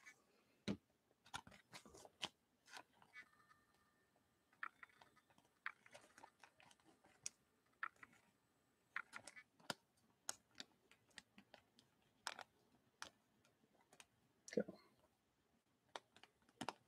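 Faint, scattered crinkles and clicks of a trading card being handled and slipped into a clear plastic sleeve.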